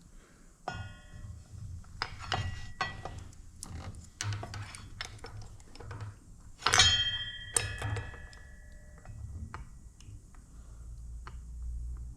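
Metal wheel spacers and axle parts being handled and test-fitted, with scattered clinks and taps. A louder ringing metal clink comes about seven seconds in, and a smaller ringing one about a second in.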